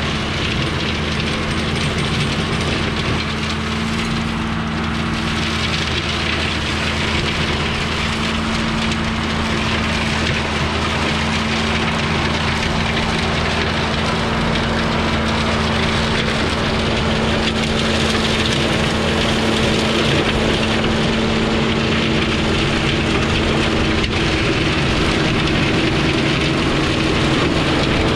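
John Deere tractor running steadily under load while a rear-mounted brush chopper shreds pruned orchard branches. Under a dense rushing, crackling noise of chopping there is an engine drone that grows gradually louder as the tractor approaches.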